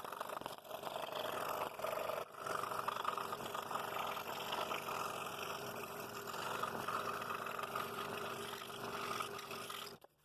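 A power tool working wood, running continuously with small rises and dips in loudness, then stopping abruptly near the end.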